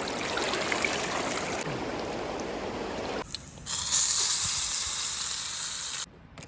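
Rushing river water, a steady wash of noise that cuts off after about three seconds. After a short gap comes a louder, higher steady hiss, which stops abruptly near the end.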